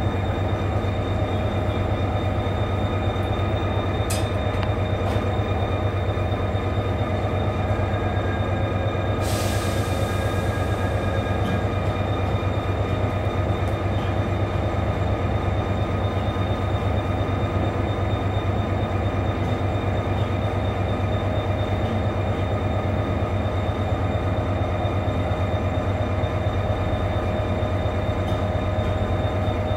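Train standing idle in a station, its locomotive equipment running: a steady low hum with several held tones. A short hiss of air comes about nine seconds in.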